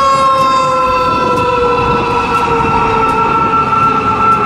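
Fire engine on an emergency run sounding its warning signal continuously: a loud, sustained chord of horn-like tones whose pitch slowly falls, over the rumble of traffic.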